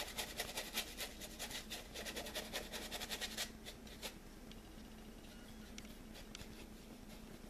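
Paintbrush scrubbing acrylic paint into canvas: rapid scratchy back-and-forth strokes of bristles on the canvas weave. The scrubbing stops about three and a half seconds in, leaving only faint light brushing and a few soft ticks.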